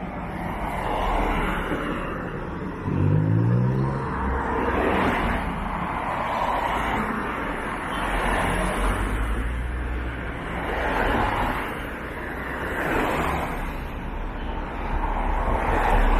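Road traffic: cars passing one after another, each swelling and fading, over a low rumble. About three seconds in, an engine revs up briefly.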